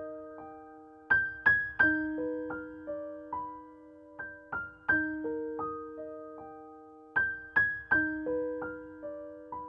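Calm background music: a slow keyboard melody of single notes that are struck, ring out and fade, in short phrases about every three seconds.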